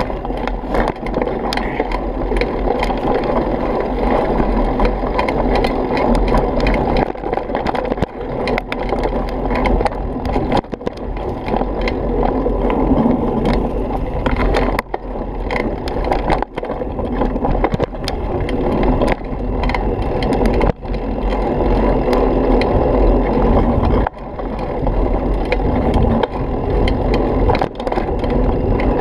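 Mountain bike rolling fast over a rough dirt trail: a continuous rumble of tyres on dirt and gravel, with the bike rattling and frequent sharp knocks from bumps. A few brief drops in the noise interrupt it.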